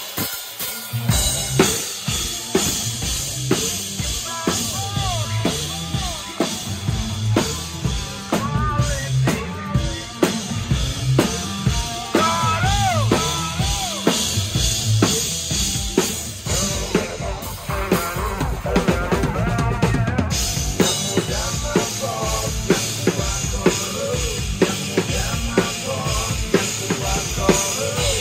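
Rock band playing live at a sound check: a drum kit beats steadily with kick and snare under a bass line, and a lead line bends up and down in pitch.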